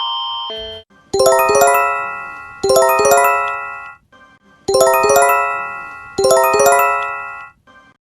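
Electronic alert chime: a quick rising run of bell-like notes that rings out and fades. It is sounded four times, in two pairs. Just before the first chime, a two-tone electronic alarm cuts off.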